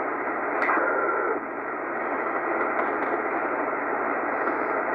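Tecsun PL-880 shortwave receiver's speaker hissing with band noise in LSB mode while it is tuned down through the 80-metre amateur band. A sharp click comes about half a second in, followed by a brief whistle from a passing signal.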